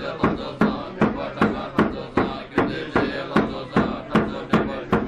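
Tibetan Buddhist monks chanting in unison on a steady low pitch, kept in time by a large frame drum (nga) struck at an even pace of about five beats every two seconds.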